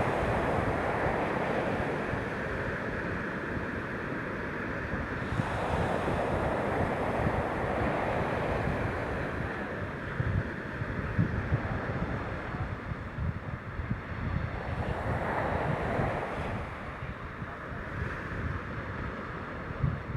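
Waves washing in, surging and fading every few seconds, with wind rumbling on the microphone.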